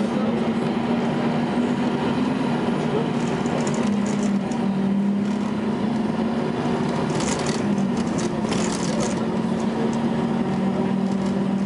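Volvo B10BLE bus engine heard from inside the saloon as the bus drives along, a steady, even drone whose pitch dips slightly about four to five seconds in. Bursts of higher hiss or rattle come through around three seconds in and again around seven to nine seconds in.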